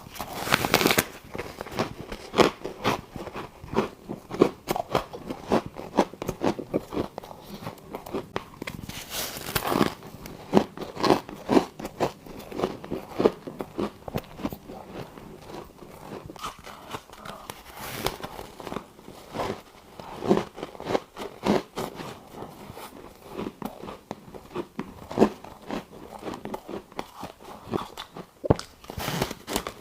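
Close-up biting and chewing of frosty freezer ice chunks: a few louder, sharp crunching bites, with dense squeaky crackling crunches of chewing between them.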